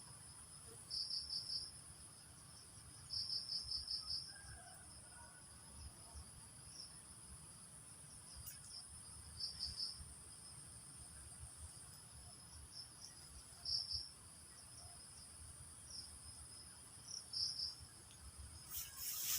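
Crickets and other insects calling: a steady, very high continuous trill, with short bursts of rapid chirps repeating every few seconds. A brief louder noise comes near the end.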